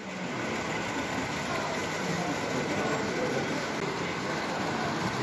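Hornby Dublo OO-gauge model train running around a layout, heard over a steady background hubbub.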